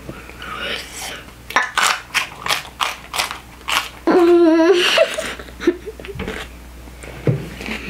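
A child biting into and chewing a raw jalapeño pepper, a quick series of sharp crunches. About four seconds in comes a short wavering vocal sound from his mouth, about half a second long, then more crunching chews.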